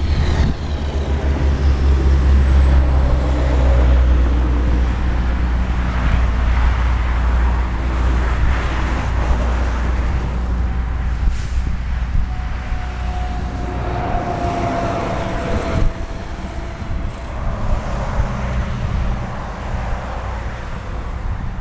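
CSX diesel freight locomotive running, a steady low engine rumble that is loudest in the first few seconds.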